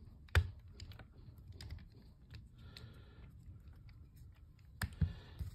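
Small metal hand tools being handled at a bench: a driver and its bit turning and knocking lightly against a pistol slide, making light irregular ticks. One sharp click comes about half a second in and two more come close together near the end.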